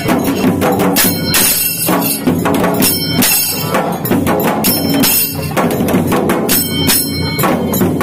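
Loud percussive music: sharp strikes, about two to three a second, each ringing briefly, over a steady low hum.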